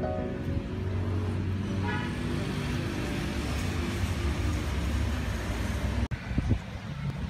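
Steady low rumble of outdoor road traffic, with a faint engine whine about two seconds in.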